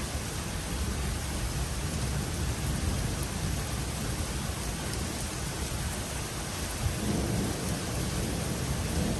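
Steady rain falling, with a low rumble of thunder that swells from about seven seconds in.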